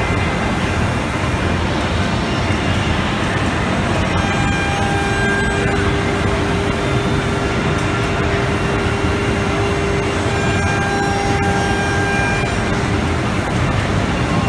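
ATC CNC wood router working a door panel: a steady loud run of spindle and cutter noise with the gantry traversing, plus a held machine tone that comes in about five seconds in and drops out about seven seconds later.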